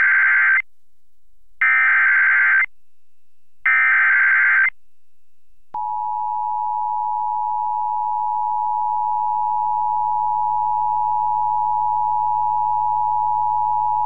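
Emergency Alert System broadcast alert: three one-second bursts of screechy digital SAME header data tones, about a second apart, then the EAS two-tone attention signal (853 and 960 Hz together) starting about six seconds in and held steadily to the end. Together they mark the start of an emergency alert, here a severe thunderstorm warning, heard over an FM station's live stream.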